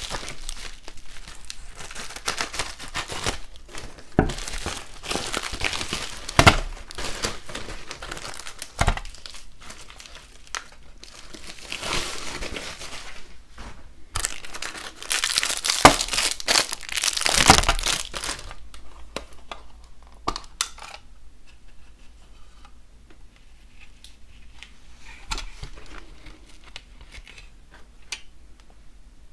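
Plastic packaging crinkling and rustling as a plastic bag is cut open with scissors and the clear plastic wrap is torn off a small metal tin. This is loudest for the first eighteen seconds or so, then drops to quieter handling with a few light taps as the tin case is opened.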